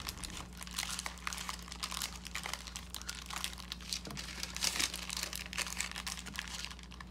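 Butter paper crinkling and rustling in irregular crackles as it is rolled and pressed around a filled chapati.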